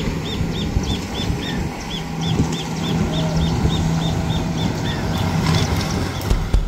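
Motorboat engine running steadily at a distance, with a high chirp repeating about three times a second over it. The engine fades out near the end.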